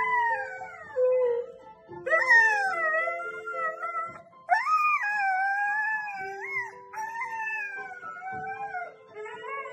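A dog howling, about four long howls in a row, each rising and then falling away, over music with long held notes.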